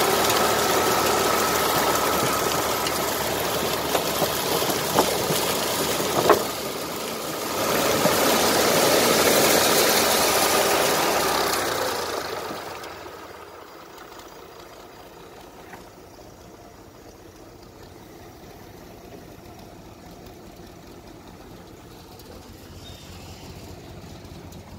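Diesel tractor engine running while ear corn pours out of a tipping hopper into a trailer, a dense rattling rush with a brief sharp clank about six seconds in. At about twelve seconds the rush of cobs dies away and only the quieter engine running at idle remains.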